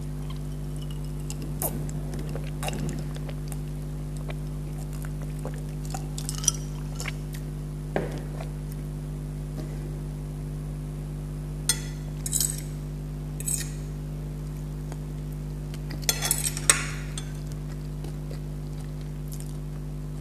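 Ice and glass clinking as a drink is sipped from a stemmed glass with ice cubes and set back down. Scattered sharp clinks and taps, most of them in a cluster in the second half, over a steady low hum.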